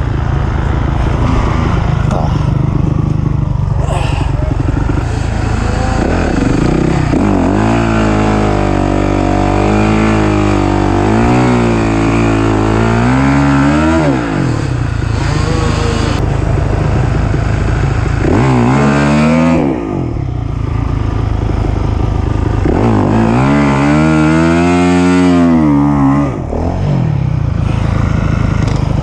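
Off-road race machine's engine revving hard and easing off over and over, its pitch climbing and falling with throttle and gear changes, briefly dropping off about 14, 19 and 26 seconds in.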